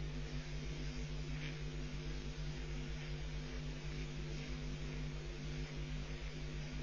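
Steady electrical mains hum and buzz with a hiss over it: the self-noise of a nest webcam's audio line.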